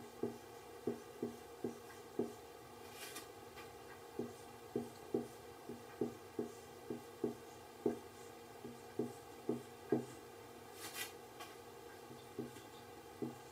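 Felt-tip marker writing on a whiteboard: a run of short, irregular stroke sounds, one for each pen stroke, with two brief hisses, about three seconds in and again near the end.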